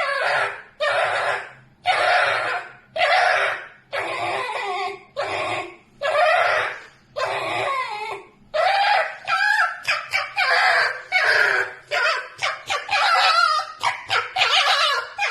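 Pet red fox screaming in its sleep: a run of short, strained, wavering cries, roughly one a second, becoming shorter and quicker near the end.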